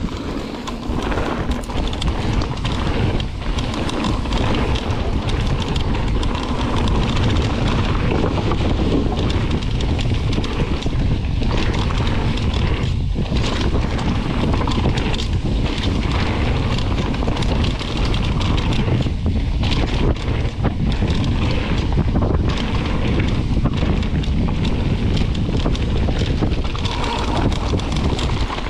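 Wind buffeting the microphone of a camera on a moving mountain bike, with the tyres rolling over a gravel and dirt trail, a steady rushing noise throughout.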